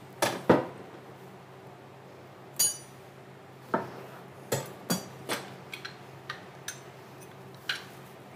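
Kitchen prep clatter: two sharp knocks of a whisk against a stainless mixing bowl, a brief ringing metal clink, then a run of knocks and taps as a knife cuts a lemon on a cutting board.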